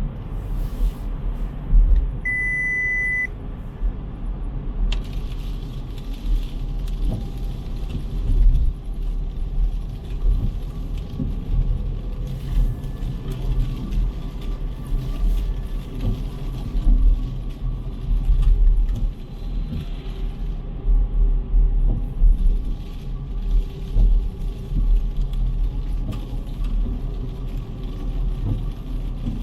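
City street traffic with a steady low rumble of passing cars. About two seconds in there is a single electronic beep lasting about a second.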